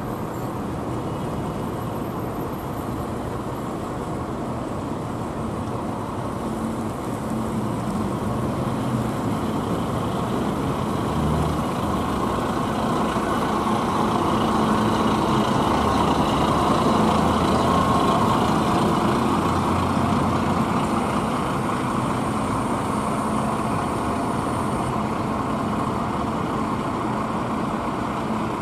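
Articulated Volvo 7900A city bus driving slowly past, its engine running steadily. The engine noise swells to a peak about halfway through and then eases off, with other buses running in the background.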